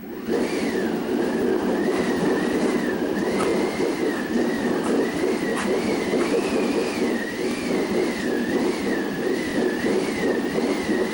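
Stage sound-effects performance starting on cue: a steady rushing wind effect with a fast flutter, and a thin high whistle over it that wavers up and down.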